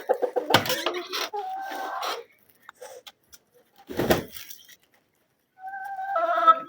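Backyard chickens calling: two drawn-out hen calls, one about a second and a half in and a louder one near the end, between a few knocks and bumps.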